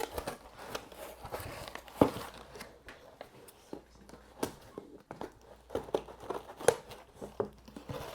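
Cardboard and paper packaging of an AirPods 4 box being handled and opened: crinkling and rustling with scattered taps and clicks, the sharpest about two seconds in and again near seven seconds.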